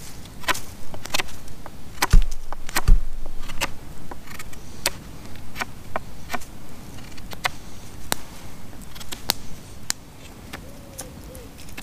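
Knife whittling a wooden stick: a quick run of short, sharp slicing cuts, with two heavier thumps about two and three seconds in. The cuts thin out and get quieter near the end.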